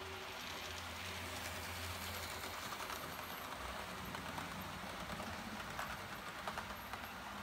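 Model railway train rolling past on the track: a steady running noise with a run of light, quick clicks from the wheels passing over the rail joints, thickest in the second half.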